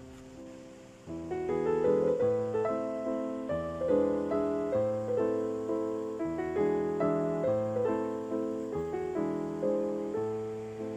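Background piano music: a flowing run of notes over slow low bass notes, growing fuller about a second in.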